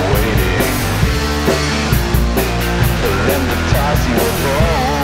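Punk rock song playing: a rock band with a drum kit keeping a fast, steady cymbal beat.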